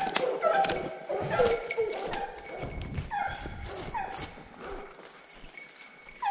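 Pack of Fauve de Bretagne scent hounds giving tongue on the trail of a roe deer: many short yelping bays, each falling in pitch, several dogs overlapping, busiest in the first half and thinning out towards the end. Irregular low thumps of movement close to the microphone run under them.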